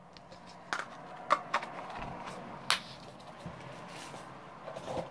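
Small containers of salt and herbs being handled: a few sharp clicks and knocks, the sharpest a little before the middle, with light rustling between and more small clatter near the end.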